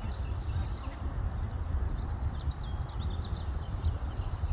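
Small birds chirping, with one rapid high trill about a second and a half in, over a steady low outdoor rumble.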